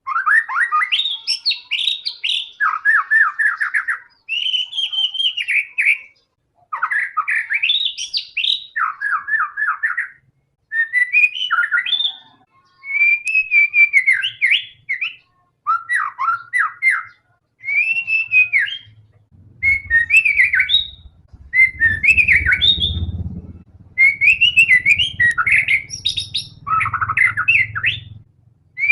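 White-rumped shama (murai batu) singing continuously: phrase after phrase of fast trills, clear whistles and chattering notes, with short pauses between phrases. A faint low rumble sits under the song in the second half.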